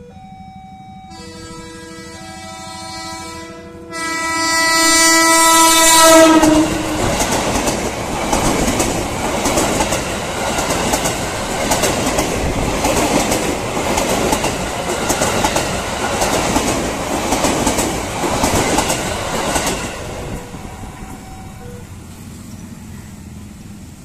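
Level-crossing alarm sounding in two alternating tones, then a KRL commuter electric train's horn blowing long and loud, its pitch dropping as the train reaches the crossing at about six seconds. The train then rushes past close by, its wheels clattering over the rails, and fades away at about twenty seconds.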